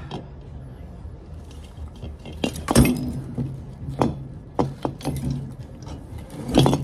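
Metal tools and parts clinking and knocking as a refrigerator compressor is being worked on, about half a dozen sharp strikes with the loudest nearly three seconds in, over a steady low hum.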